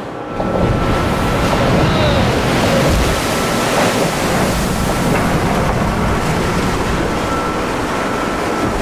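Heavy seawater rushing and surging across a ship's open stern deck in a gale, breaking in suddenly about half a second in, with strong wind buffeting the microphone.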